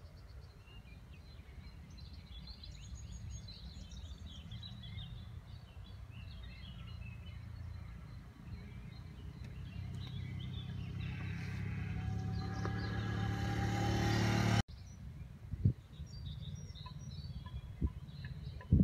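Outdoor ambience with a low rumble and faint small-bird chirps. A rushing noise builds steadily for several seconds and then cuts off suddenly about two-thirds of the way through. A few short, sharp sounds follow near the end.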